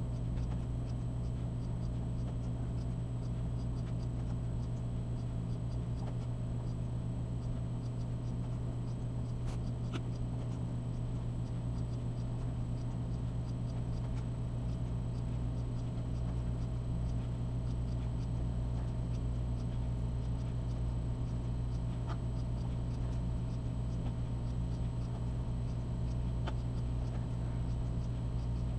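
Steady low electrical hum with faint, scattered clicks of a computer mouse.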